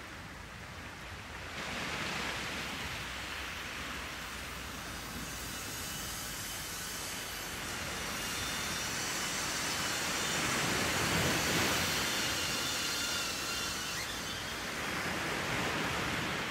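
BetaFPV cinewhoop drone's motors and propellers whirring: a steady rushing hiss with a faint high whine, growing louder about two seconds in and again around ten to twelve seconds.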